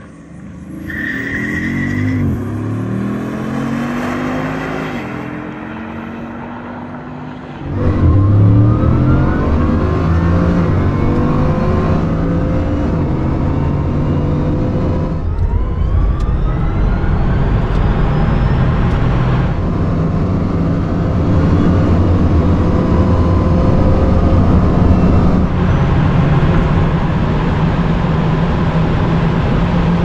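Bugatti Chiron Super Sport's quad-turbo W16 engine at full throttle in a top-speed run, climbing in pitch through several gear changes. About eight seconds in it becomes much louder and closer, heard from inside the car's cabin.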